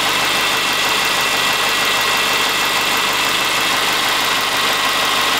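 Subaru Forester's flat-four engine idling steadily after ten minutes of warm-up in the cold, with a knock that the owner takes for piston slap.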